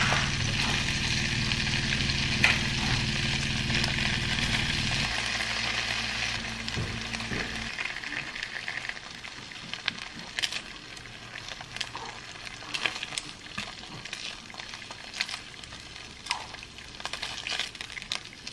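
Turkey bacon strips frying in oil in a nonstick pan, sizzling steadily with many small crackling pops. A low hum underneath fades about five seconds in and stops near eight seconds, leaving the sizzle quieter. A few light taps come near the end as a strip is turned.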